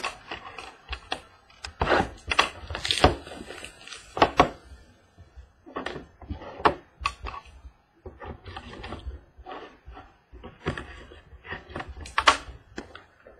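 A small cardboard trading-card box being handled and opened by hand on a table: irregular taps, knocks, scrapes and rustles, with the loudest strokes about three, four and a half and twelve seconds in.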